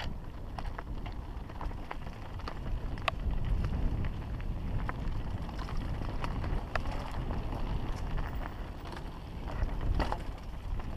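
Mountain bike riding over rocky, gravelly singletrack: a steady low rumble of wind on the microphone and tyres on dirt, with frequent sharp clicks and rattles as the bike crosses stones.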